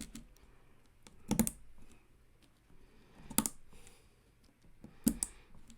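Three sharp plastic clacks about two seconds apart: keycaps being pressed down onto Gateron CM mechanical keyboard switches, each bottoming out with a click.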